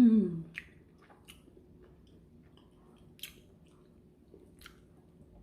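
A person chewing food with their mouth close to the microphone, with a few sharp wet mouth clicks and smacks spread through it. A short voiced hum at the very start is the loudest sound.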